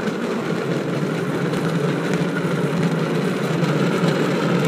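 Steady rumble of wheels rolling over an asphalt road, with wind noise on the microphone.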